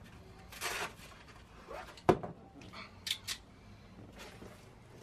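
Small handling noises of tools and parts being moved about: a short rustle, a sharp knock about two seconds in, and a couple of light clicks a second later.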